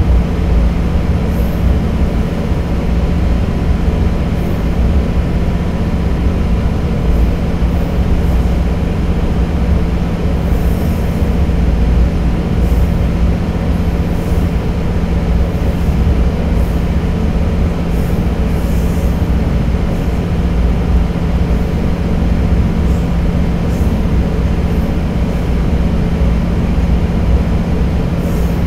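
Diesel railcar running steadily through a long tunnel, heard from inside the car: a continuous low rumble of engine and wheels on rail, with a steady hum and now and then a faint, brief high squeak.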